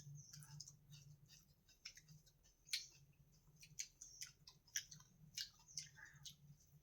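Close-up chewing: irregular soft crunches and wet mouth clicks, some two or three a second, over a faint steady hum.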